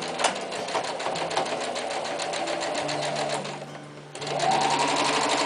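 Electric sewing machine stitching through fabric with a quick, even beat of the needle. About four seconds in it stops briefly, then starts again faster with a rising motor whine.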